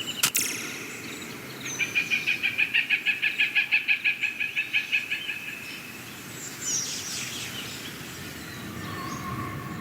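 A bird call: a rapid, even trill of about five notes a second lasting around four seconds, with a few short chirps after it, over a steady outdoor background. A sharp click sounds right at the start.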